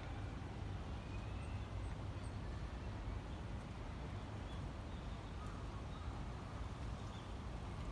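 Outdoor park ambience: a steady low rumble with a few faint, scattered bird chirps.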